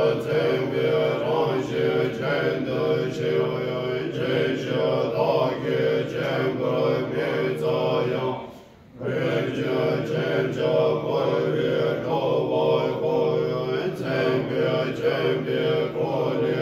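Tibetan Buddhist monks chanting a mantra together in low, long-held tones. The chanting breaks off for a breath about halfway through, then resumes.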